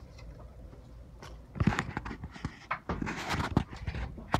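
Handling noise from a phone being picked up and moved: rubbing, brushing and bumping against its microphone in irregular bursts, starting about a second and a half in.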